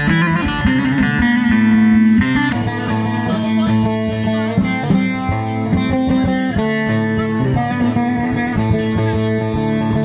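Instrumental passage of Turkish folk music: a plucked bağlama (long-necked lute) playing a running melody, without singing.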